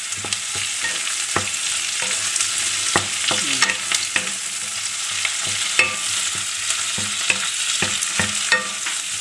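Fried chicken pieces sautéing with garlic and onion in a hot frying pan: a steady sizzle, with irregular clicks and scrapes from a wooden spatula stirring against the pan.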